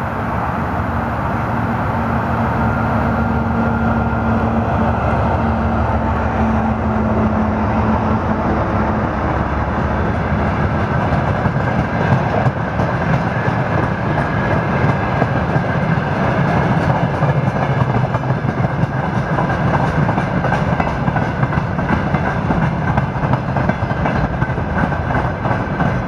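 Freight train passing close: a steady low hum from the locomotive for roughly the first nine seconds, then a long string of tank cars and boxcars rolling by with rhythmic wheel clatter over the rail joints.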